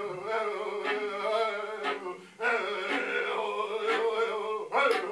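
A man's voice improvising wordless sound-poetry vocals in chant-like phrases, broken by a short pause about halfway through. A bowed viola holds a steady tone beneath it.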